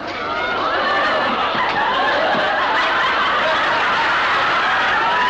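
Studio audience laughing together, a dense, continuous crowd laugh that swells during the first second and then holds steady.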